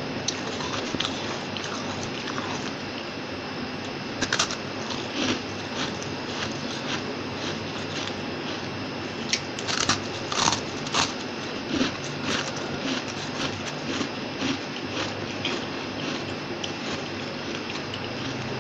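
Biting and chewing a disk of freezer frost: crisp, icy crunches, some single, with a cluster of louder bites about halfway through, over a steady faint hiss.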